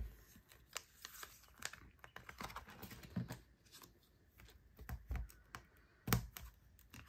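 Light clicks and rustles of clear plastic binder pocket pages and photocards being handled: a sleeve page is turned over on the binder rings and a pocket is pried open. There is a louder knock about six seconds in.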